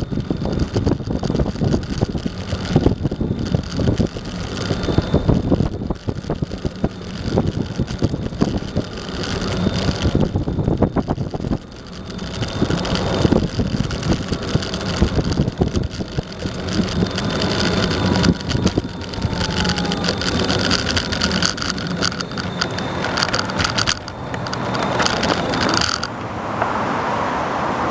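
Eglide electric skateboard rolling over pavement, picked up by a camera mounted on the board: steady wheel rumble with dense rattling clatter. Near the end the rattling stops, leaving a steady hiss.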